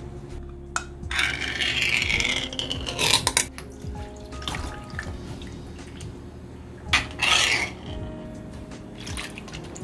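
Brine from a can of whelks poured and splashing through a stainless steel mesh strainer into a bowl, with clinks of metal bowls, and a louder splash near the end as the whelks are tipped in. Soft background music plays underneath.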